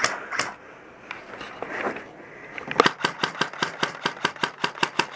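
Airsoft rifle firing on full auto: a rapid, even stream of sharp cracks, about eight shots a second, starting almost three seconds in, after a few scattered clicks.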